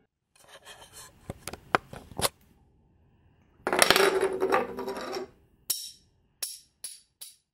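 Sharp clicks and clinks of a small hard object on a hard surface, then a short rushing noise about halfway through. Near the end a small object bounces several times, the bounces coming faster and faster as it settles.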